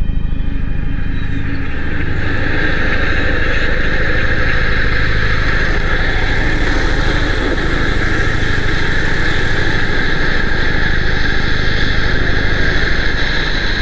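Droning synthesizer score: a fast-pulsing low drone, with a sustained high tone coming in about two seconds in.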